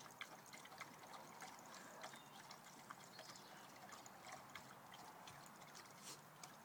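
Faint, irregular lapping of a dog drinking water from a tub: small wet clicks.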